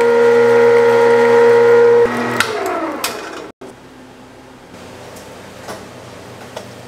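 Electric meat grinder motor running with a steady hum while it extrudes minced meat. About two seconds in the hum drops and falls in pitch as the motor winds down. After that there is only faint kitchen noise with a few light clicks.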